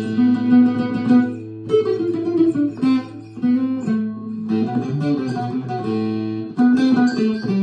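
Kurdish tembûr (long-necked saz) played with a plectrum: a melody of quick picked notes over a steady low drone note, which stops a little before the end.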